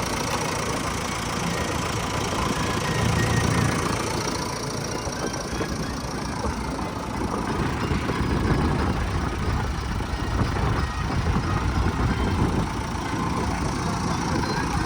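Heavy diesel engine of earthmoving or farm machinery running steadily, its level rising and falling a little.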